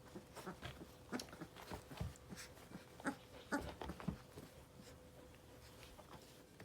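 Three-week-old puppies playing, with faint scattered little grunts, squeaks and scuffles, busiest in the first four seconds or so and quieter after.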